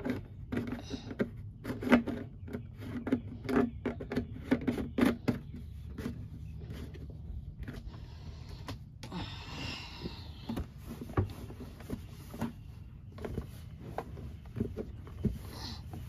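Knocks and clicks of plastic parts as a portable camping sink's water tank is handled, over a steady low electric hum. Later, a wet cloth or towel is rubbed over the plastic tank.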